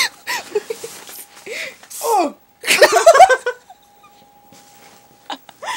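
Young people laughing and giggling in short, breathy bursts, with pitch sliding up and down; the loudest bout comes about three seconds in, then it dies down before picking up again near the end.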